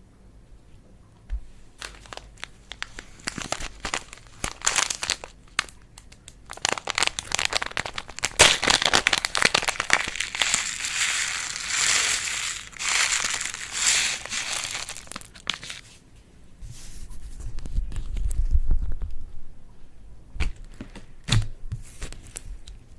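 Slime being squished and worked by hand, giving dense crackling clicks and pops that build for about a dozen seconds and then die down to a few scattered clicks.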